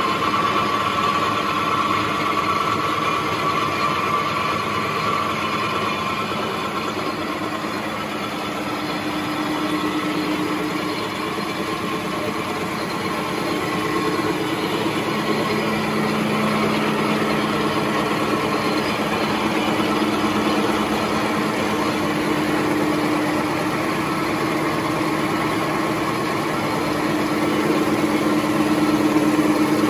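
XY-OQ-7000K two-colour napkin paper making machine running at speed: a steady mechanical whir with a continuous hum. A higher whine in the first few seconds gives way to a lower hum.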